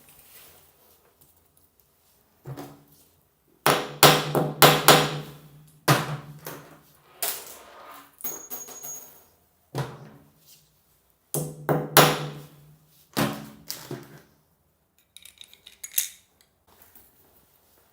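Power drill running in short bursts of a second or two, about eight times, with quiet gaps between.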